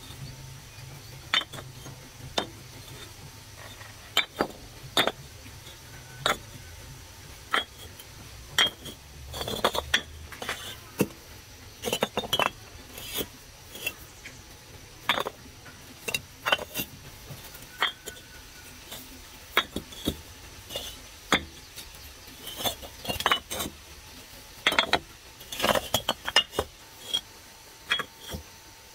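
Hollow fired-clay bricks clinking and knocking against one another as they are picked from a pile and stacked by hand: sharp, irregular clicks, sometimes several in quick succession.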